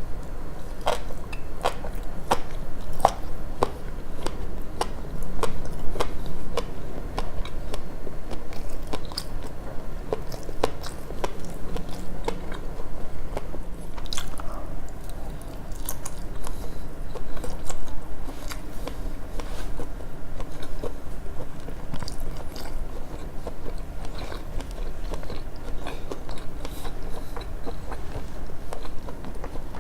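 Close-miked chewing of sushi: wet mouth sounds with many small sharp clicks and smacks coming irregularly, several a second.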